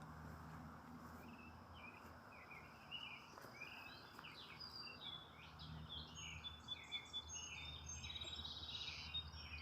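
Birds singing and chirping, many short overlapping notes that start about two seconds in and grow busier, over a faint steady low background hum.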